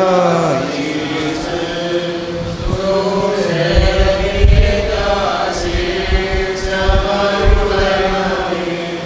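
Slow Syriac Orthodox liturgical chanting in Malayalam, with long held notes that slide slowly between pitches.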